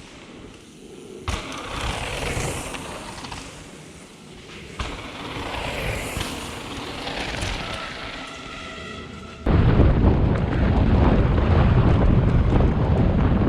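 A mountain bike rattling down a rough trail, its tyre and trail noise starting and stopping abruptly, with a short high squeal about two-thirds of the way in. About three-quarters of the way in, loud wind buffeting on the camera microphone sets in suddenly as the bike speeds up.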